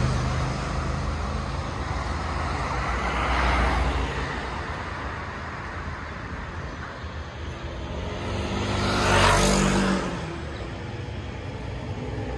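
Road traffic: vehicles driving past close by, two of them passing loudest about three and a half and nine seconds in, over a steady low engine hum.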